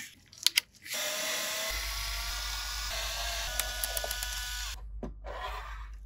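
A couple of short clicks, then a small electric screwdriver fitted with a Torx T8 bit runs steadily for about four seconds, backing out screws, and stops.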